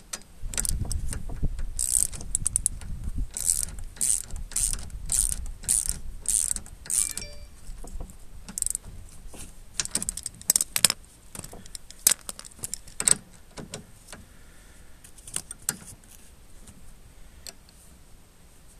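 Socket ratchet worked back and forth on a nut of the scooter's steering, a run of ratcheting strokes about two a second for the first several seconds, then a few scattered clicks and knocks.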